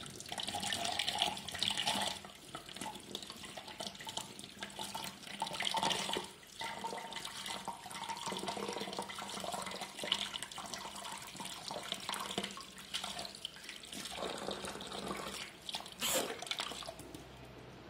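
Tap water running into a stainless steel sink and splashing over hands as they rinse orchid seedlings, washing off the agar medium from the flask. The splashing rises and falls as the hands move, and the flow stops near the end.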